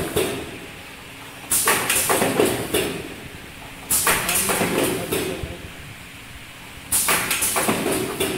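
Semi-automatic pneumatic cardboard box packing machine cycling: a sudden burst of mechanical clatter and air noise, each about a second long, comes three times, every two to three seconds, over a steady background hum.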